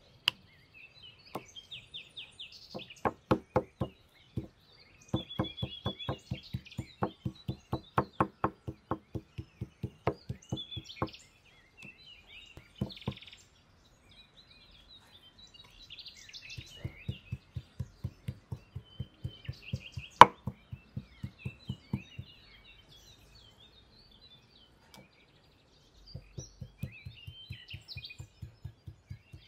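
Cleaver blade chopping rapidly into a raw pork chop on a wooden chopping board to score and tenderize it: runs of quick dull knocks, about four or five a second, broken by pauses, with one sharper crack about twenty seconds in. Birds chirp in the background.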